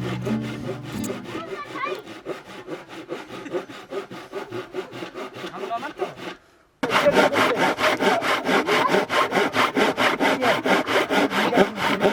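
Hand saw cutting wood in rapid, even back-and-forth strokes, several a second. After a short break just past the middle, the sawing resumes louder.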